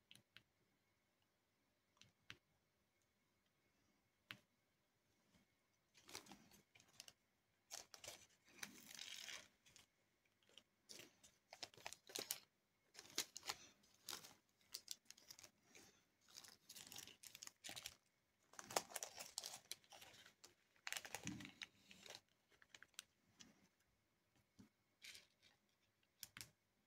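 Small resin diamond-painting drills, their plastic tray and a plastic drill bag being handled: quiet crinkling and rattling in irregular spells, after a few isolated soft clicks.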